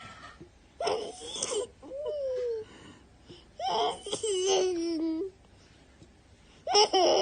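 Child laughing hysterically in four high-pitched, wheezing bursts that border on crying.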